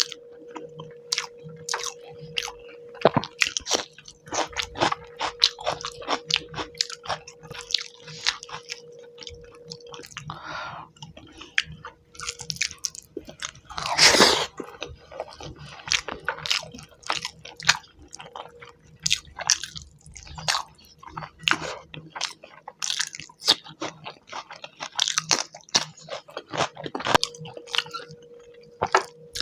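Close-miked wet chewing and lip smacks of someone eating fish curry by hand, as a run of quick squishy mouth clicks. About halfway through comes one louder, longer smacking noise.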